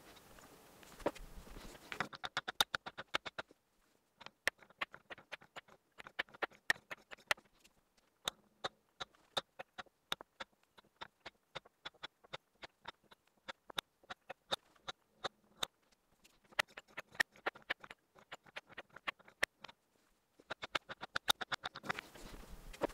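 Painted wooden balls clacking against one another and against a wooden bowl and wooden cups: a dense, irregular run of small sharp clicks with brief pauses. The clicks start about two seconds in and stop shortly before the end.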